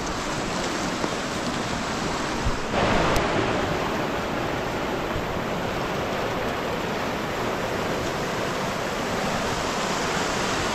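Steady rush of flowing water from a stream or river, growing a little louder about three seconds in.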